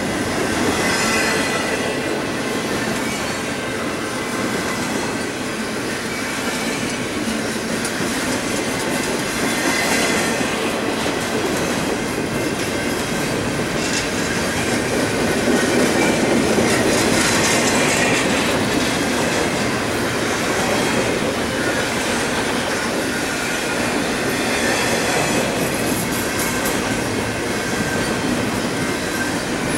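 A loaded double-stack container freight train rolls steadily past with the continuous rumble of its well cars' wheels on the rails. Occasional clanks and a faint thin high ringing from the wheels sound over it.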